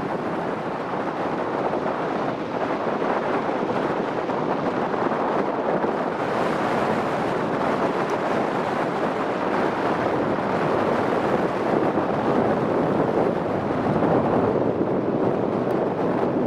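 Strong storm wind buffeting the microphone over the steady rushing noise of heavy surf breaking on a sandy beach, growing slightly louder after a few seconds.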